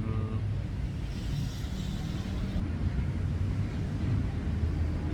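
Steady low rumble of wind and traffic heard while cycling beside a coastal road, with a brief hiss about a second in that ends abruptly after about a second and a half.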